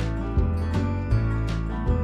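Background music with a steady beat, a struck note about every 0.4 seconds over sustained pitched tones.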